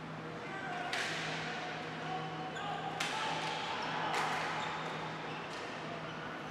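Ball hockey play in an arena: sharp cracks of sticks and the hard plastic ball hitting the floor and boards, three main hits about one, three and four seconds in, each echoing off the hall. Players' shouts and a steady hum sit underneath.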